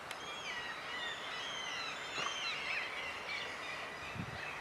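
A small songbird chirping and warbling repeatedly in the background. Near the end come low thumps and rustling as the air rifle is lifted off its wooden rest.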